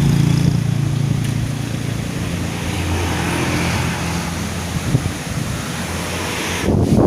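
Strong wind rushing and buffeting the microphone, with a steady engine hum that fades out over the first few seconds.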